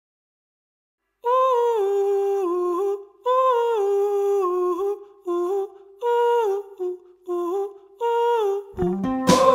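Background music: a lone high voice hums a slow wordless melody, starting about a second in, in phrases of a second or two that each step down in pitch. Near the end, guitar-led band music comes in.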